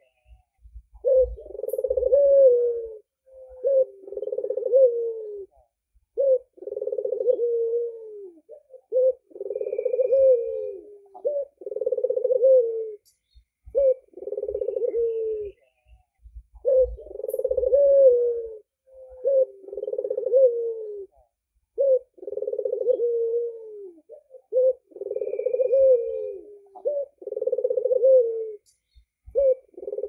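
Albino red-eyed puter dove (domestic Barbary dove) cooing over and over. A low coo phrase of a second or two repeats every two to three seconds, many phrases ending in a falling slur.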